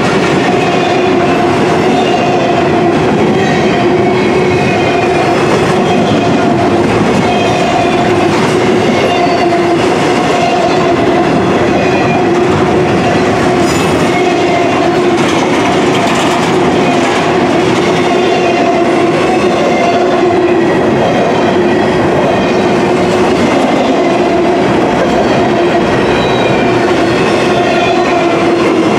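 A long intermodal freight train's container-laden well cars rolling past close by, a steady loud rumble and clatter of steel wheels on the rails. A steady tone runs under it throughout.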